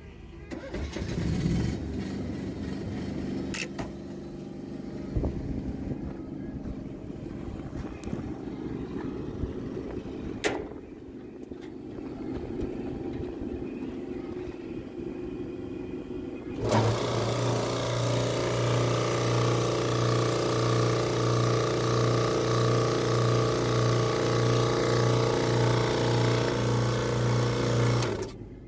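Onan 7,000 W generator on a utility truck body cranked from its push-button panel, catching and then running steadily. About seventeen seconds in, a louder machine with an evenly pulsing low hum cuts in: the truck body's air compressor starting to charge the air reserve.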